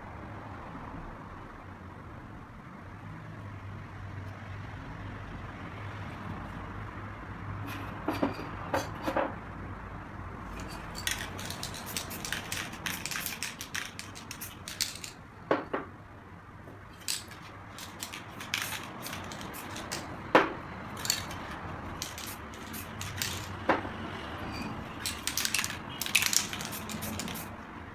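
Aerosol spray paint can hissing in many short bursts, starting about eight seconds in, over a faint steady low hum.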